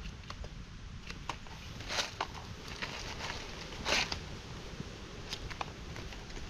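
Dry leaf litter and twigs crackling and rustling, with scattered small clicks and two louder rustles about two and four seconds in.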